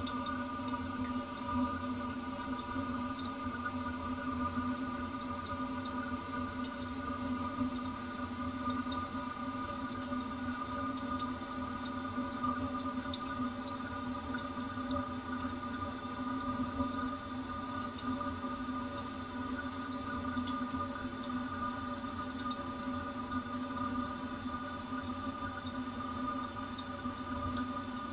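Toilet tank refilling after a flush: water running steadily into the cistern through the fill valve, with a steady whine over the hiss.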